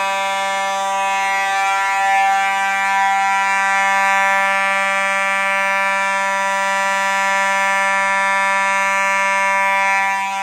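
Simplex 4903-9219 electromechanical fire alarm horn sounding a steady, continuous, very loud buzzing blare, with its pitch freshly adjusted.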